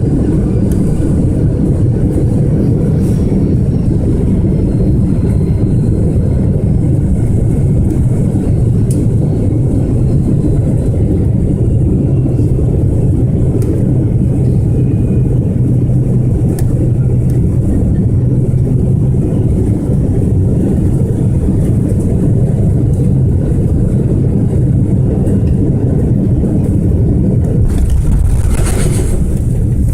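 Steady low rumble of an Airbus A330-300 airliner's engines and airflow heard inside the passenger cabin, with a brief hiss near the end.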